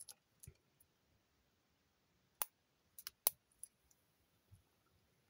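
Small plastic Lego pieces clicking as they are pressed and snapped together by hand: a few sharp snaps, the loudest a little over three seconds in.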